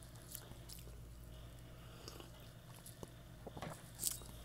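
Faint mouth and lip sounds while tasting a sip of coffee: a few soft clicks and smacks, with a slightly louder tap about four seconds in, over a low steady hum.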